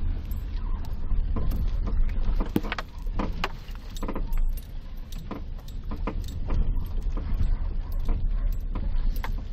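Daewoo Lanos suspension knocking and creaking, the sign of a suspension fault: irregular sharp knocks over the steady low rumble of the car on the move.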